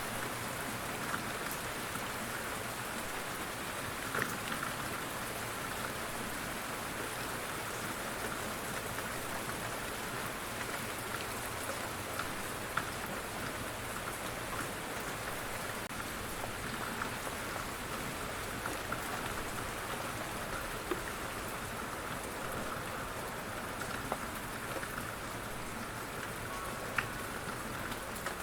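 Steady rainfall, with individual raindrops ticking sharply on a surface here and there.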